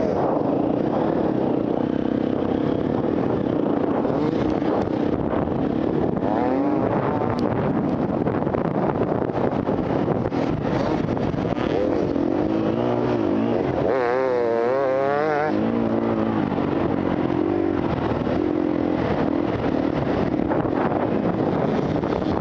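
Off-road enduro motorcycle engine running under load. Its pitch rises and falls with the throttle, and it warbles rapidly up and down for a moment about two-thirds of the way in.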